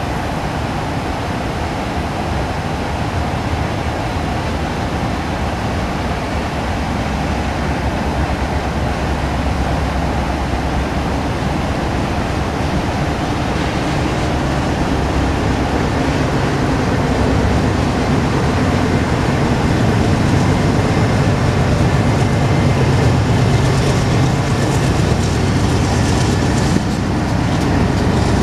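Slow-moving BNSF grain train of covered hopper cars rumbling past, heard from inside a car. The sound is steady and builds gradually, the low rumble growing stronger in the second half.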